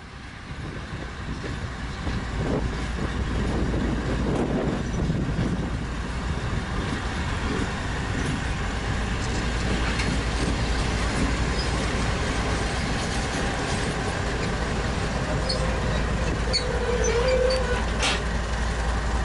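Two coupled LHS ST40 diesel locomotives running light at shunting speed, their engines a steady rumble that grows louder over the first few seconds as they come closer. A brief squeal comes near the end.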